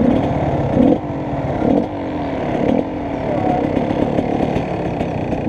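Off-road dirt bike engine running at low speed with repeated throttle blips, about one a second, each falling back in pitch.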